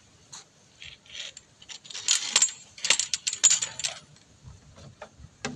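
Metal snake-catching tongs and hook clinking and scraping against a tiled floor, a quick run of sharp clinks bunched mostly between about two and four seconds in.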